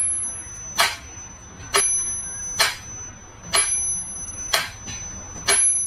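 A small bell struck about once a second in an even rhythm, several strikes leaving a high ring hanging after them.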